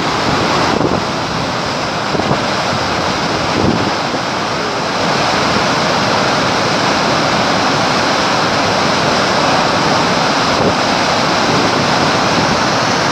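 A muddy flash-flood river pouring over a canyon drop as a waterfall, a loud, steady rushing of heavy floodwater.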